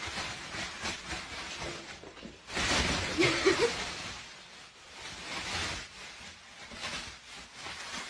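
Thin plastic carrier bag rustling and crinkling as a cat scrambles into it, loudest from about two and a half to four seconds in.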